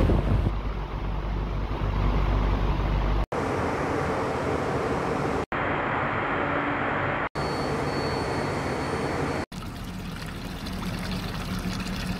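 Tyre pyrolysis plant running, heard in four short cuts each broken off by a brief gap: a steady machinery drone with water splashing in the cooling tower, then oil running through a sight glass, and oil pouring from an outlet pipe into a bucket near the end.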